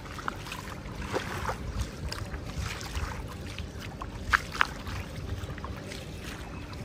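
Footsteps wading through shallow floodwater, with splashing and sloshing at each step; two sharper splashes come close together a little past halfway.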